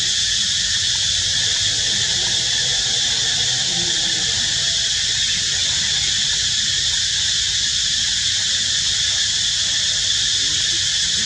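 Steady, high-pitched insect chorus, unbroken and unchanging throughout.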